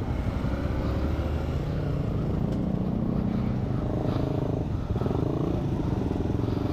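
Honda TMX 125 single-cylinder motorcycle engine running on the move, its note rising and falling a few times, over a steady low rumble of wind and road.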